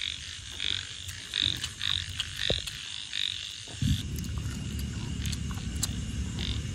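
Frogs croaking, a short call repeated about every half second through the first half. From about four seconds in there is also a low steady rumbling noise.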